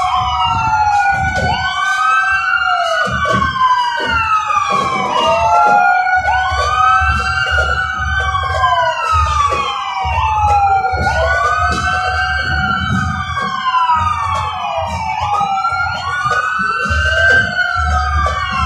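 Several sirens wailing at once, their overlapping rising-and-falling tones repeating about once a second, over a low rumble.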